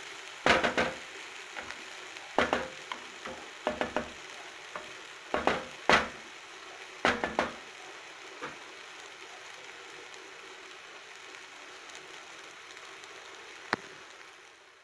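Grated drumstick sizzling in oil in a pan, cooked in the oil alone without water. A spoon scrapes and knocks against the pan in a run of strokes over the first eight seconds or so, with one more click near the end, over a steady sizzle.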